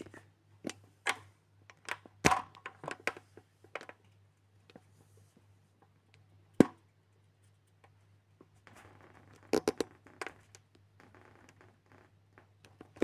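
Hands handling plasticine on a modelling board: scattered taps and knocks, with one sharp knock about six and a half seconds in and a stretch of rubbing and scraping with more knocks around ten seconds in.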